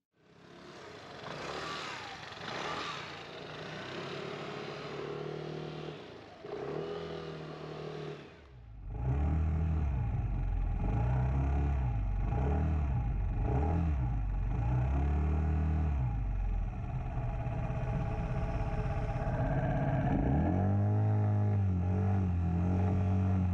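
Piaggio Medley 150 scooter's single-cylinder engine running on the road, its pitch rising and falling as the throttle opens and closes. For the first eight seconds or so there is only a rushing noise, and then the engine comes in loud.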